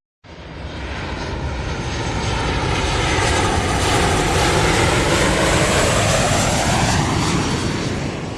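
Recorded airplane flying past: engine noise that swells in from quiet to a loud, steady rush, its pitch lines bending as it passes, and then cuts off suddenly near the end.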